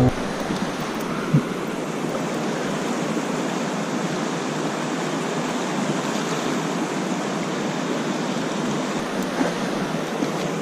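Steady rush of fast river water with wind over the microphone, an even hiss, broken by a single brief knock about a second and a half in.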